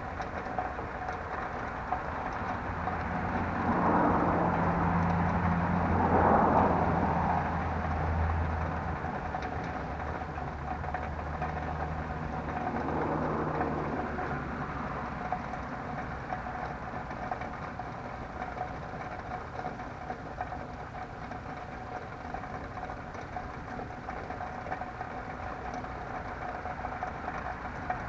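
Motor vehicles passing, engine hum and road noise swelling and fading over a steady background hiss. The louder pass comes about four to nine seconds in and a weaker one about thirteen seconds in.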